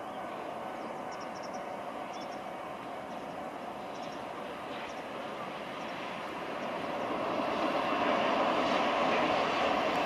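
JR Freight EF210 electric locomotive (EF210-127) hauling a freight train of tank wagons as it approaches. Its running noise is a steady rumble that grows clearly louder from about six seconds in.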